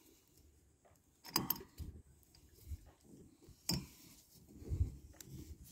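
Brass check valve being turned by hand onto a taped plastic tank fitting: a few light clicks and knocks of metal on plastic, with soft handling thumps between them.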